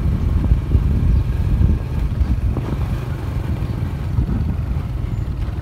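Riding a motorbike along a road: a steady low rumble of wind on the microphone, with the engine running underneath.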